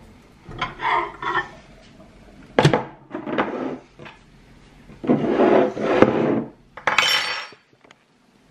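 Dishes and utensils clattering as they are handled and set down on a wooden kitchen worktop. The noises come in several separate bursts, with a sharp knock about two and a half seconds in and a brief high rattle near the end.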